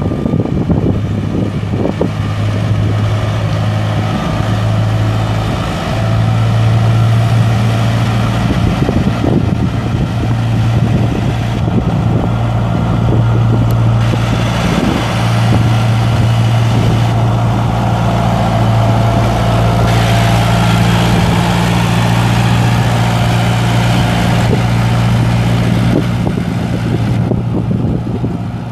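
John Deere 2120 tractor's 3.6-litre four-cylinder diesel engine running at a steady speed as the tractor drives slowly across a lot.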